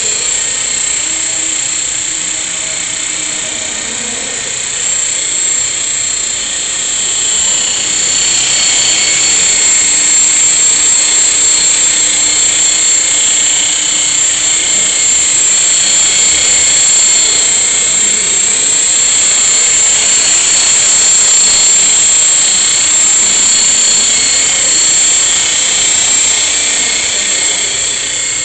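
Esky Belt CPX electric RC helicopter in flight: a steady, high-pitched whine from its motor and rotor head. It grows louder about eight seconds in and then holds.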